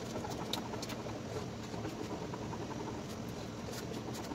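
A utensil stirring and scraping a thickening maja blanca mixture in a cooking pot, with light irregular clicks over a steady low noise. He stirs it continuously on low heat so that the bottom does not burn.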